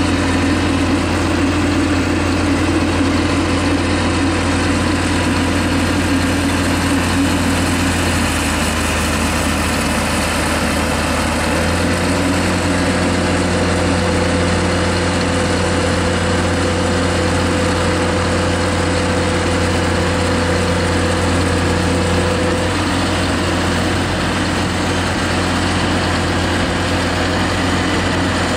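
Heavy farm tractor's diesel engine running steadily at low revs. Its pitch dips about eight seconds in and steps back up about four seconds later.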